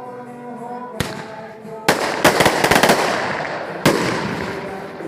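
Fireworks going off: a single bang about a second in, another just before two seconds, a quick run of cracks, then a last bang near four seconds. Each bang leaves a long echoing tail.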